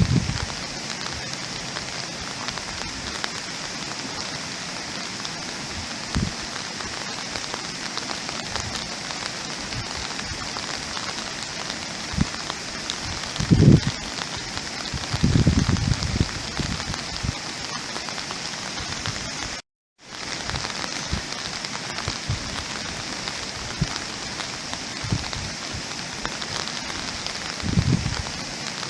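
Steady rain falling, an even hiss with heavier drops landing now and then as low thuds, the biggest a little before the middle and near the end. The sound cuts out completely for a moment about two-thirds of the way through, then resumes.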